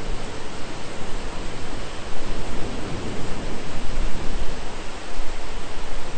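Steady heavy rain. A low rumble of thunder swells under it from about two seconds in and fades near the end.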